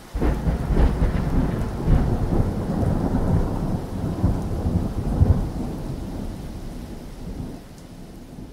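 A clap of thunder that starts suddenly and rumbles on, fading away over several seconds, over the hiss of rain.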